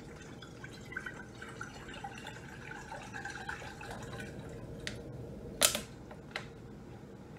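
Water running from a tap into a bowl, with a wavering trickling tone. Near the end comes a sharp knock, the loudest sound, and then a smaller one.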